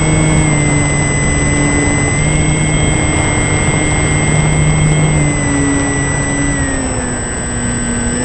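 A loud engine running steadily, its pitch stepping up and down slightly a few times, with a dip near the end.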